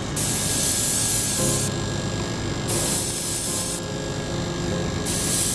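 Airbrush spraying flat white paint in three short bursts of about a second each. The paint is blown through a thin sliver of abrasive cleaning sponge held against the model, to lay down a mottled pattern.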